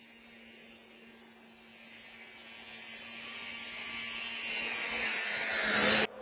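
Snowmobile engine at full throttle with its throttle stuck open, growing steadily louder as the runaway machine approaches. The sound cuts off suddenly near the end.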